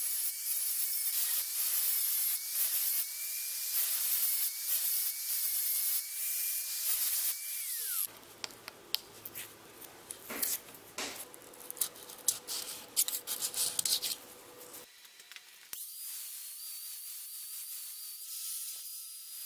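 Angle grinder grinding the steel edge of a camping-axe head: a steady motor whine with a harsh grinding hiss, which stops abruptly about eight seconds in. Clicks and scraping from the blade being handled follow. About sixteen seconds in the grinder runs again, quieter and steadier, as it skims the blade.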